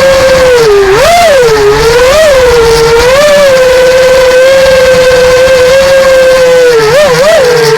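FPV freestyle quadcopter's brushless motors and propellers whining loudly at a steady pitch. The pitch swoops up and back with short throttle punches about one, two and three seconds in, holds steady, then blips twice quickly near the end.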